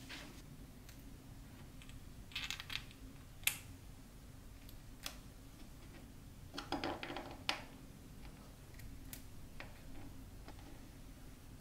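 Small RC car parts (ball bearings, washers, a steel pin) being picked up and fitted by hand into a 3D-printed plastic part: scattered light clicks and clatter, with two short flurries of clicking and a couple of sharper clicks near the middle.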